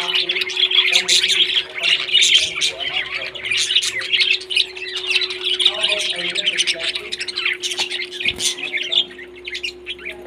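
Several pet parrots chirping and squawking together in a dense, busy chatter that thins out near the end, over a steady low hum.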